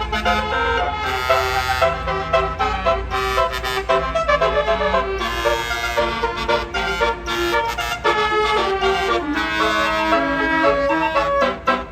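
Telolet basuri, a bus's multi-trumpet musical horn, playing a tune: a quick run of changing horn notes, often several sounding together, over a steady low rumble.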